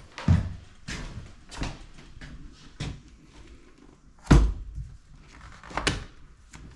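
A string of irregular knocks and thuds, one much louder thud a little past the middle.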